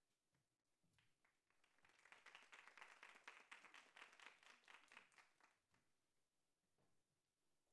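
Faint applause from a small audience, swelling about two seconds in and dying away near the end.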